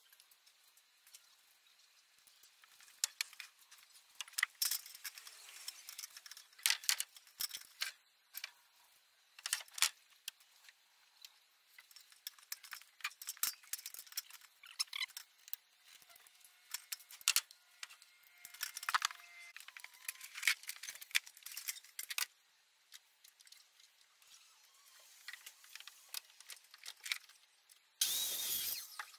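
Small metal tools and hardware clinking and rattling, with scattered light knocks on timber, during carpentry work on a wooden roof frame. Near the end there is a louder, steady noise lasting about a second.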